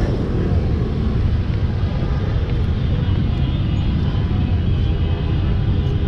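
Steady road-traffic noise from cars driving past close by, a continuous low rumble.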